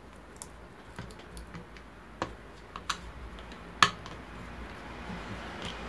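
Scattered light clicks and taps of small plastic parts and a screwdriver being handled inside the opened plastic base of an electric citrus juicer; the sharpest click comes a little under four seconds in.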